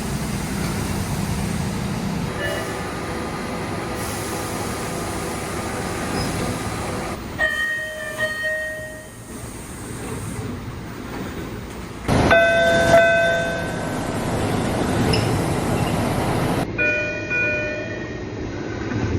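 MBTA Orange Line subway cars standing and moving at platforms, with electronic door chimes sounding three times: short clusters of steady tones about 7 s, 12 s and 17 s in. These are heard over the cars' running noise.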